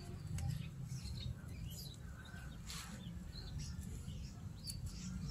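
Faint outdoor background: scattered short bird chirps and soft rustles of a leaf being twisted onto a bamboo stick, over a low steady rumble.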